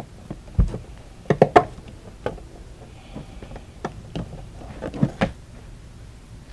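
Irregular clicks and knocks from hand work with tools on the trolling-motor mount's parts and wiring. There is a low thump about half a second in, a quick run of three sharp clicks around a second and a half in, and a few more single clicks after that.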